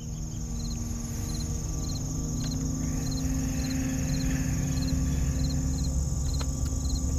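Crickets chirping about twice a second over a steady high insect trill, with a low sustained musical drone underneath, fading in over the first couple of seconds.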